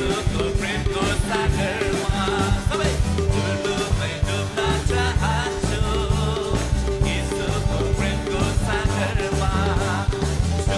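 Upbeat worship music with singing over a band, driven by a steady beat.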